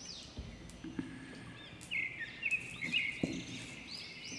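A bird chirping over and over, with short rising-and-falling calls and a few held, buzzier notes in the middle. A couple of soft knocks come about half a second in and near three seconds as chopped garlic is dropped into the kadhai of hot oil.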